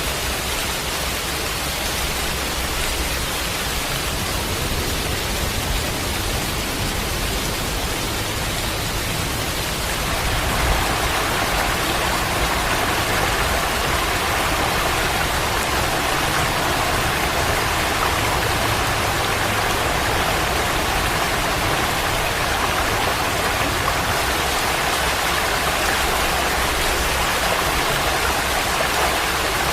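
Rushing floodwater: a steady, unbroken rush of water that gets a little louder about ten seconds in.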